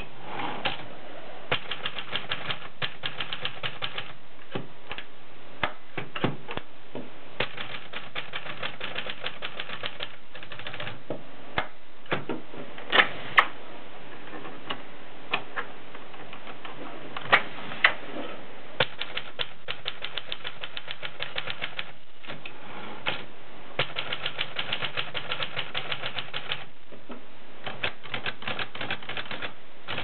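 Triumph Contessa manual portable typewriter being typed on: runs of rapid key strikes with short pauses between them, and a few louder clacks midway.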